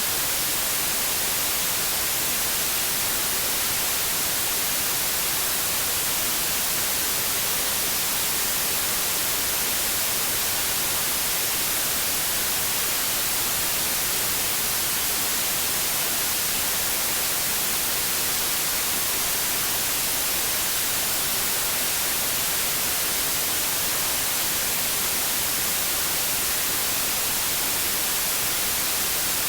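Steady static hiss, an even white noise with no tones or changes, strongest in the treble.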